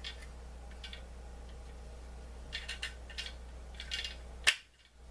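Small plastic clicks and ticks of a toy vehicle's wheels being worked onto their axles, too tight to roll, with the loudest, sharpest snap about four and a half seconds in.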